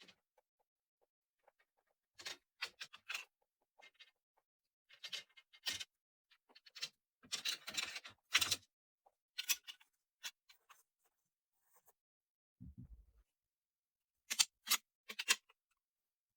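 Intermittent small scrapes and clicks of objects being handled and worked by hand, with a longer scraping stretch in the middle and three sharp clicks near the end.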